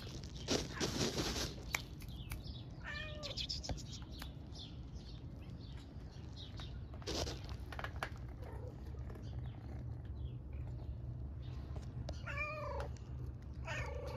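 Cats meowing: a few calls that fall in pitch, about three seconds in, near seven seconds and again about twelve seconds in, over a steady low rumble. A brief noisy rustle about half a second in is the loudest moment.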